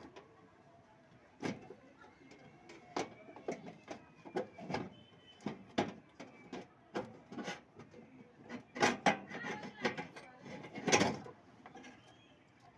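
Tools and metal parts of a split AC outdoor unit being handled: irregular clicks and knocks, coming thickest and loudest near the end.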